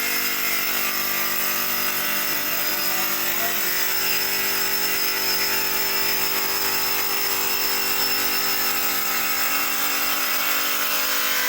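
Three-function stone cutting machine running steadily with an even whine, its tool rounding the edge of a stone piece; it cuts off suddenly at the very end.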